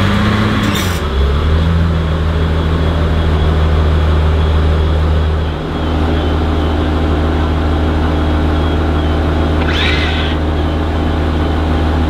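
Mercedes-Benz F200 Imagination concept's 6-litre V12 just after starting. The revs fall back within the first second, then it settles into a steady idle.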